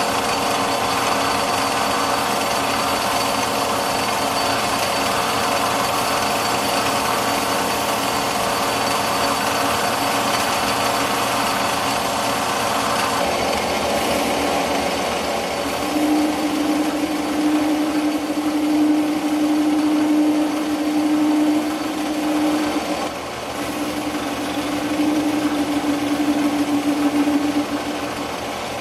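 Metal lathe running while a custom-ground high-speed steel tool bit cuts the shoulder and thread relief groove on a steel stud. From about halfway in, a loud steady ringing tone of tool chatter joins the cutting, breaking off briefly and coming back. The chatter comes from the long stick-out of the collet chuck and the part.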